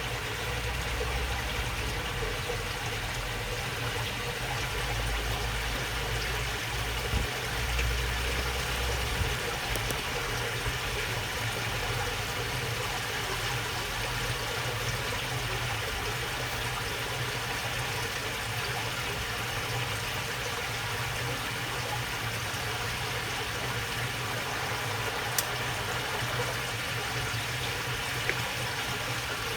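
Shallow water running and babbling steadily along a narrow channel, with a low rumble underneath that is strongest in the first ten seconds.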